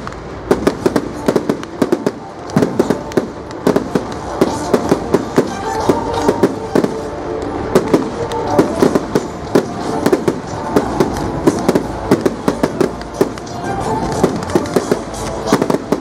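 Fireworks display: a dense, continuous run of bangs and crackling reports, several a second.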